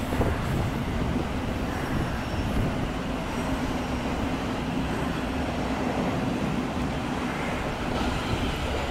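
Thameslink Class 700 (Siemens Desiro City) electric multiple unit running past close below: a steady rumble of wheels on rails with a low steady hum underneath.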